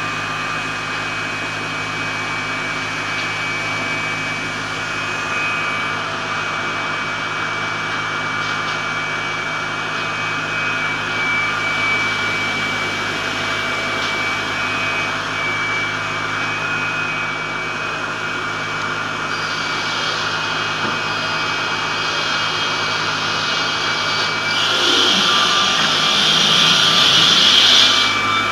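Perun MSP-1300 Skat multi-rip circular saw machine (12 circular saw blades, 22 kW) running steadily with a constant whine. About 25 seconds in the noise grows louder and brighter and the low pitch drops as the blades take the load of cutting a sheet of latoflex, then it settles back near the end.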